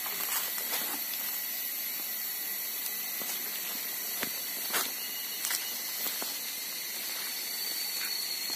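Steady high-pitched hiss and drone of forest insects, with a few short crunches of footsteps on dry leaves and twigs.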